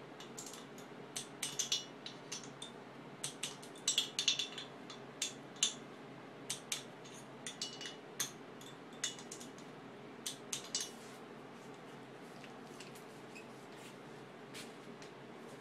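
Ratchet of a socket wrench clicking in short irregular bursts as the cylinder head nuts of a small moped engine are tightened down; the clicking stops about eleven seconds in.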